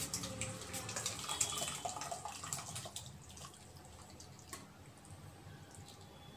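Thick chicken gravy sliding and splatting out of a stainless-steel pressure cooker pot into a glass bowl, scraped out with a wooden spatula: wet dripping with clicks of spatula on steel, busiest for about the first three seconds, then fainter scrapes.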